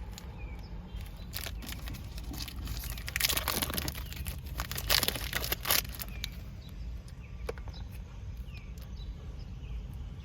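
Snack-bar wrapper crinkling and tearing open. It goes as scattered rustles and clicks, with the loudest bursts of crackling about three and five seconds in.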